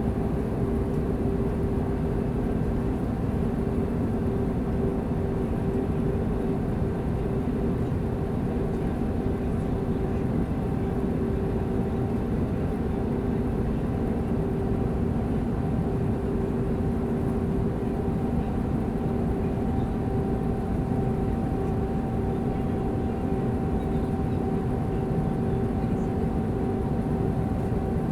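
Steady cabin noise inside an Airbus A320 on approach: the drone of its two IAE V2527 turbofan engines and rushing airflow, with a couple of steady hum tones running through it.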